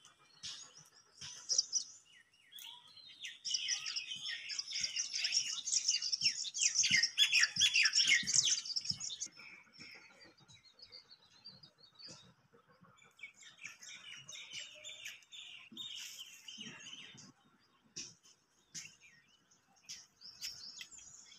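Birds chirping: a dense run of quick high chirps about three to nine seconds in, the loudest part, then thinner, scattered calls.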